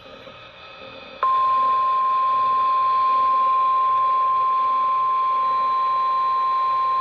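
NOAA Weather Radio warning alarm tone: a single steady, loud tone of about 1050 Hz that cuts in suddenly about a second in, over a hiss of radio static. This is the weekly test of the alarm that switches on weather alert receivers.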